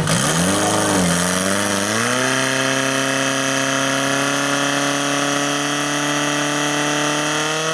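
Portable fire-fighting pump's engine being revved up: its pitch dips and wavers for about two seconds, then climbs and holds at a steady high speed as it drives water into the attack hoses.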